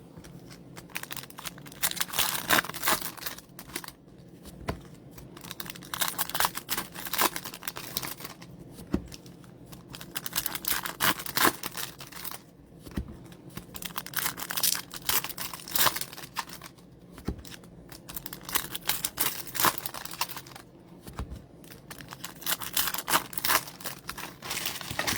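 Foil and plastic wrapping of trading-card packs being torn and crinkled open, a run of irregular crackling tears broken by short pauses.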